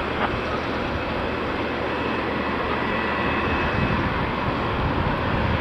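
Boeing 747-8 airliner's jet engines running with a steady rush and a faint high whine, getting slightly louder toward the end.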